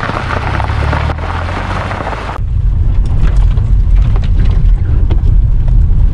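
A car's engine running as the car moves off, then, after an abrupt change about two and a half seconds in, a heavy low rumble of the car driving with wind on the microphone.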